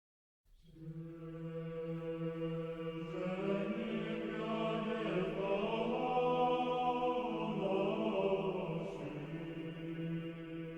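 A choir singing a slow chant over a steady held low note, beginning about half a second in and swelling over the first few seconds.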